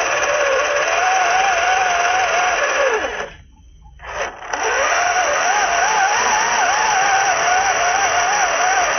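Electric motor and gearbox of an MN-series scale RC crawler whining under throttle as it drives against a muddy rut, the pitch wavering with the load. About three seconds in the whine falls away and stops briefly as the throttle is let off, then rises again and keeps wavering.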